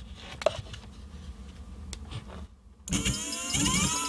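Electric scooter hub motor spinning up under throttle from a go-kart foot pedal, starting about three seconds in as a high whine of several pitches rising together. A few faint clicks come before it.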